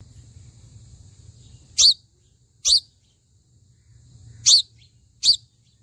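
Sunbird giving four short, sharp, high-pitched chirps: two about a second apart, a pause, then two more.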